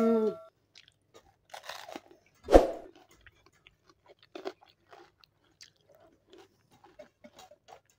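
Close chewing and crunching of people eating curd rice by hand with raw onion and green chilli: many small crunches and mouth sounds, with one louder bite about two and a half seconds in.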